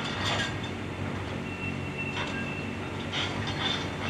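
Diesel engine of a Komatsu PC350LC excavator running steadily under a hydraulic breaker attachment, with a few separate metallic clinks and scrapes as the breaker moves over broken concrete and rebar. A thin high squeal is heard briefly near the middle.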